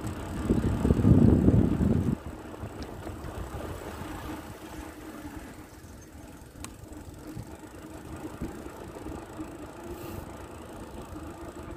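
Wind rushing over the microphone of a moving bicycle, heavy for about the first two seconds and then dropping suddenly to a steadier, lower rush of riding noise with a faint steady hum.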